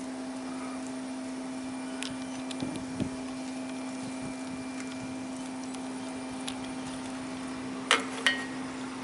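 A steady machine hum holding one unchanging tone. Near the end come two sharp knocks about a third of a second apart as a hand and an infrared thermometer are pressed against a stainless steel pipe.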